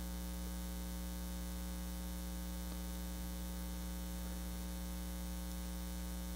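Steady low electrical mains hum with a stack of fainter, higher buzzing overtones.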